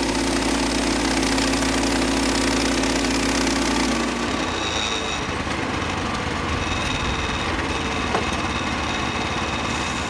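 Portable band sawmill's 13.5 horsepower Briggs & Stratton gas engine running steadily. About four seconds in, its deep steady note gives way to a noisier, higher sound.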